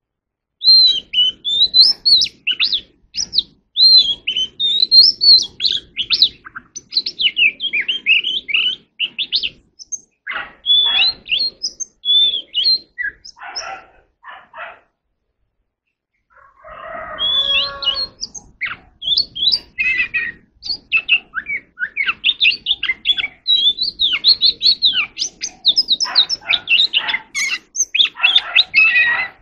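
Oriental magpie-robin singing: a quick, varied run of clear whistled and warbled notes. About halfway through it stops for a couple of seconds, then comes back with a few rougher, lower notes before the whistling resumes.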